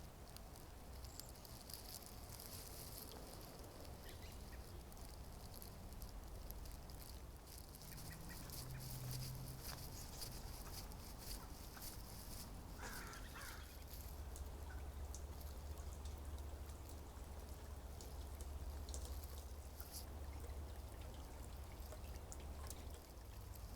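Quiet rainy-day outdoor ambience: a steady low rumble, like distant traffic, that grows stronger about halfway through, under light ticking and dripping of rain.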